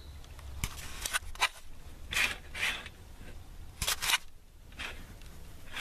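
Van window curtain being drawn closed: cloth rustling and its grommets scraping along the curtain rod in several short swishes.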